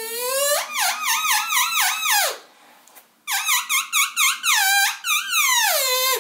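Elk bugle blown on a Reel Game Calls Elk Reel, a solid-wood elk call with a latex reed, held in the mouth. A high whistling note slides down, then a quick run of chuckles follows. After a pause of about a second comes a second run of chuckles, ending in a long downward slide.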